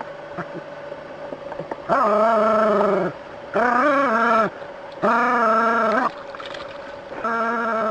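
Dog barking at a snake in long, drawn-out yowls, four of them about a second each, the first about two seconds in.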